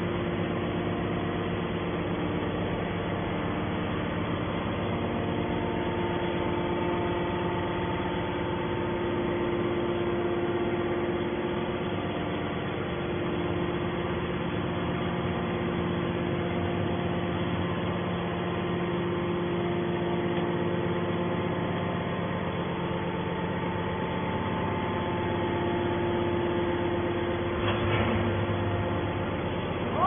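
Hydraulic scrap metal baler's power unit (electric motor and hydraulic pump) running with a steady hum, with a single short clunk about two seconds before the end.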